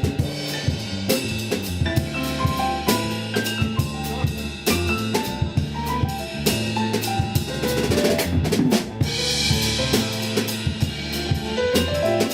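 Band music with a drum kit keeping a steady beat under a moving bass line and melodic notes, with a burst of cymbals about eight seconds in.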